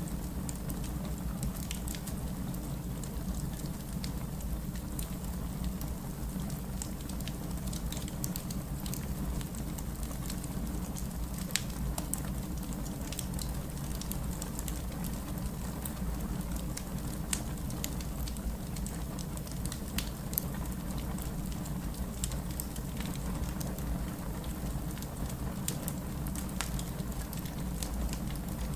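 Wood fire in a fireplace crackling, with frequent small sharp pops scattered over a steady low rumble and hiss.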